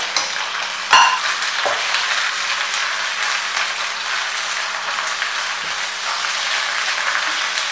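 Kangkung (water spinach) sizzling as it is stir-fried in hot garlic oil in a wok, being turned with a utensil. A sharp clank about a second in, the loudest moment, with a smaller click just after.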